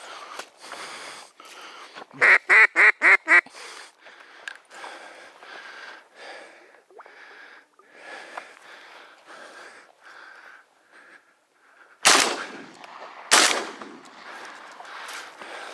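Duck quacking: a quick series of about six loud quacks about two seconds in, with fainter quacks scattered through the rest. Near the end come two shotgun shots about a second and a half apart, the loudest sounds.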